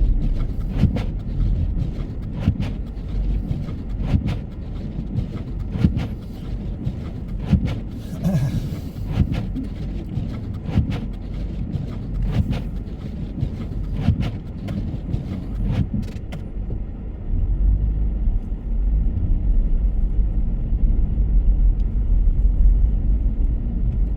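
Car driving on a snow-covered road, heard from inside the cabin: a low road rumble with frequent short knocks and clicks for the first two-thirds, then a steadier, duller rumble.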